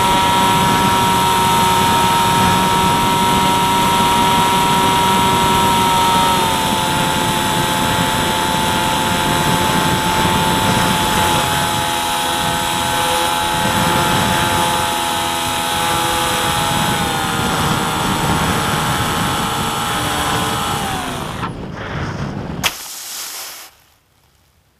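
Electric motor and propeller of a small EPP foam model plane running with a steady whine, heard from the onboard camera. The pitch steps down twice, about 6 and 17 seconds in, as the throttle is eased, then slides down and dies away near the end, with a sharp knock as the plane comes down in the grass.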